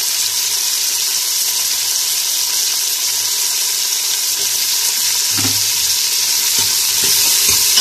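Sliced onions and whole dried red chillies sizzling in hot oil in a steel pressure cooker, a steady frying hiss as the onions are browned. A few soft knocks come in from about five seconds in.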